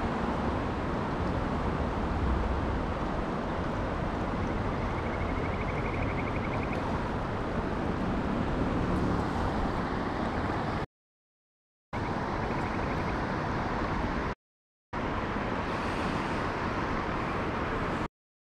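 Steady rush of flowing river water, with wind buffeting the microphone at the start. The sound cuts out abruptly to silence three times.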